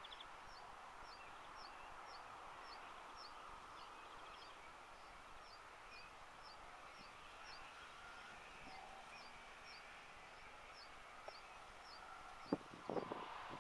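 Quiet countryside ambience: a faint high chirp repeats steadily about twice a second over a low, even background hum, with a couple of knocks near the end.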